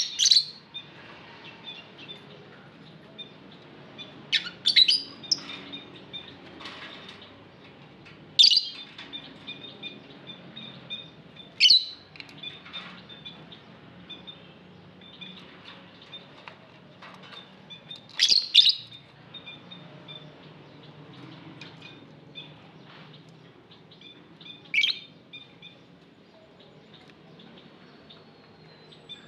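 Lovebirds calling: sharp, high chirps ring out every few seconds, two of them in quick pairs, over a steady twitter of softer chirping.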